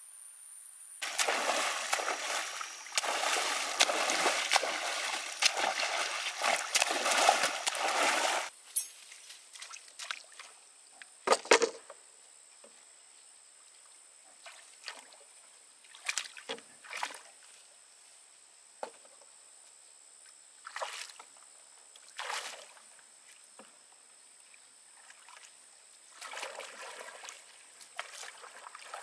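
Lake water splashing and sloshing heavily for several seconds as a person wades waist-deep after casting a net. Then come scattered short splashes and knocks from paddle strokes beside a bamboo raft, with another run of splashing near the end. A steady high insect trill sounds behind.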